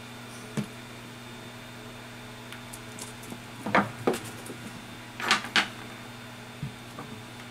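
A few sharp clicks or taps, the loudest coming as two quick pairs in the middle, over a steady low electrical hum.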